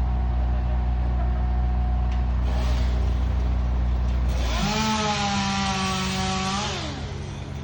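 A motor runs steadily, then revs up sharply about halfway through, holds at high speed for about two seconds and winds back down.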